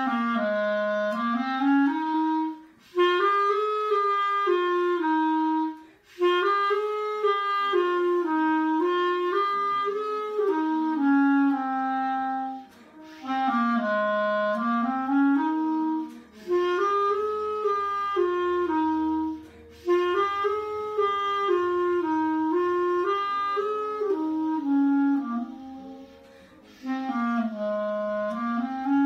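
Solo clarinet playing a melody in its lower register, in phrases of a few seconds separated by short breaths.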